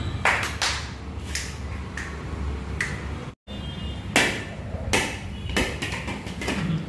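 A Shih Tzu chasing a ball across a hard marble floor: scattered, irregular clicks and knocks as the ball and the dog's feet hit the floor.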